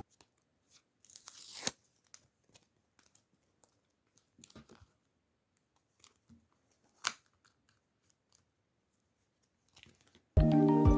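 Packaging being handled and opened: a short tearing rustle about a second in, then scattered small clicks and taps, with one sharper click about seven seconds in.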